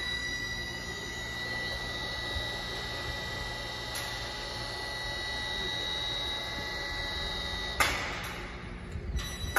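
Steady workshop background noise with a constant high whine, broken by a single sharp knock about eight seconds in.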